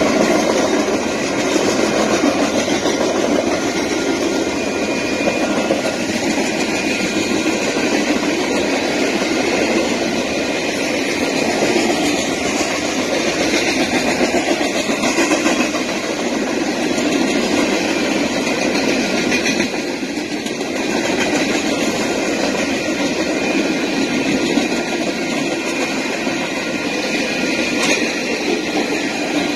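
Freight train cars rolling past at close range, a continuous rumble and rattle of steel wheels on rail, with a thin steady high tone running above it.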